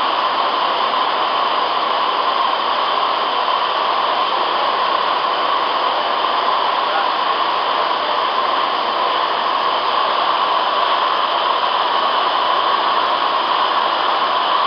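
Gemco 30 cu ft slant-cone tumble blender running, its 3 HP drive and high-speed agitator giving a loud, steady mechanical hiss with no beat or change.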